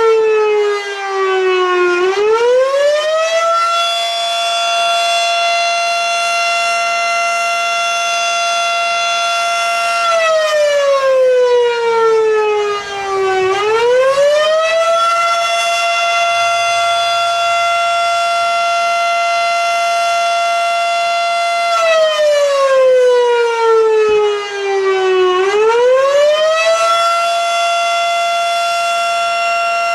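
Federal Signal Model 5 mechanical fire siren sounding its weekly test wail, loud. Its tone slides down and climbs back up three times, holding steady for about six seconds between the dips.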